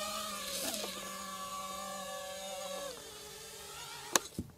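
Brushless motors and propellers of a Nazgul 5 five-inch FPV quadcopter whining, the pitch shifting as the throttle changes and dropping lower about three seconds in as it slows down. A couple of sharp clicks near the end.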